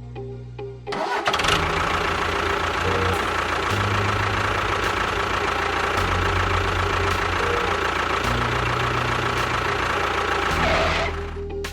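A small motor running loudly with a steady whine, switching on abruptly about a second in and cutting off near the end, over background music.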